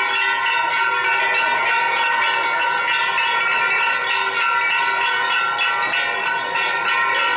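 Festival bells (kane) struck rapidly and without a break, a continuous clanging with a sustained ringing tone, over the rush of handheld tube fireworks spraying sparks.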